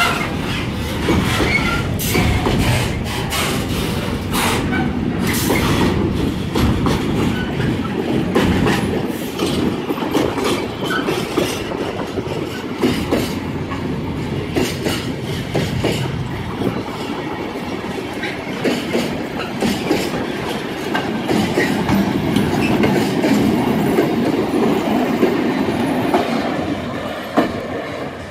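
Container freight wagons rolling past at close range: a steady rumble with the wheels clacking over the rail joints, the sharp clacks thickest in the first several seconds. Near the end the last wagon goes by and the sound falls away.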